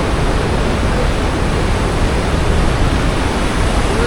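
Steady, loud roar of a huge waterfall heard from close below, a dense rushing of falling water loud enough to drown out voices.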